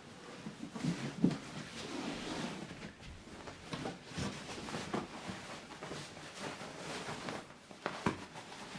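Household tidying noises in a small room: irregular knocks, clatters and rustling as things are handled, picked up and set down, with the sharpest knock a little over a second in.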